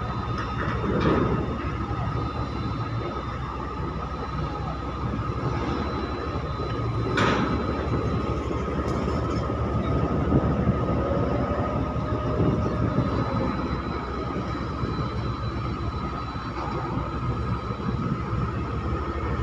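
Harbour cranes lifting shipping containers at a container quay, their machinery running as a steady low drone under a steady high whine. One brief sharp noise comes about seven seconds in.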